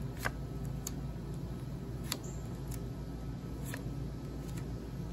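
Playing cards being laid one at a time onto a pile on a metal mesh table: about five light, sharp clicks spaced roughly a second apart, the sharpest one just after the start, over a steady low hum.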